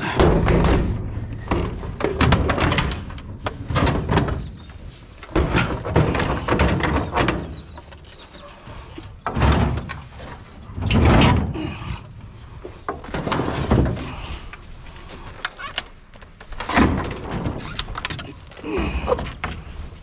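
Irregular thuds, knocks and scrapes of discarded household appliances (oil-filled heaters, a TV and other plastic and metal units) being shoved and stacked on a ute's tray, with several heavy bangs.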